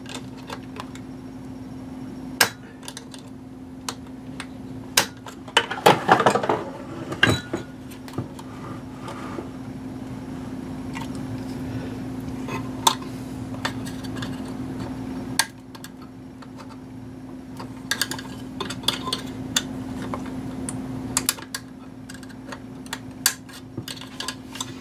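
A screwdriver prying and working at the small metal seat clamp on a stand mixer's head hinge: scattered sharp metallic clicks, clinks and a longer scrape about six seconds in, over a steady low hum.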